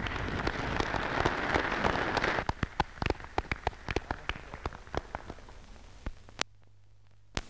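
A room of conference delegates applauding at the end of a speech. The clapping is dense at first, breaks up after about two and a half seconds into scattered single claps, and dies away about six seconds in. Near the end there is a short near-silent gap with two sharp clicks.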